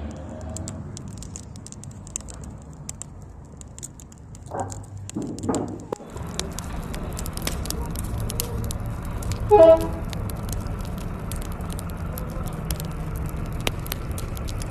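Open wood fire crackling and popping under a metal box, with a steady rush and scattered sharp pops after about six seconds. Quieter clicking comes before it. A brief loud tone sounds once, about ten seconds in.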